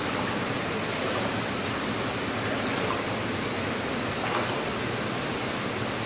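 Steady rush of flowing water in a cave.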